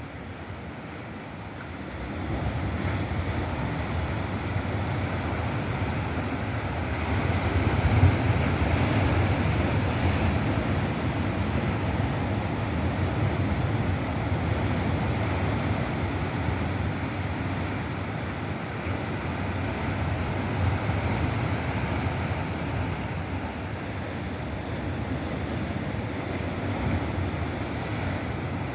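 Ocean surf: waves breaking and washing up the shore in a steady rush that swells about two seconds in and is loudest around eight seconds, then slowly eases.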